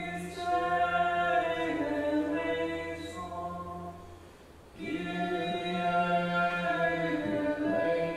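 Unaccompanied choir chanting a liturgical text in two phrases, with a short pause about four seconds in.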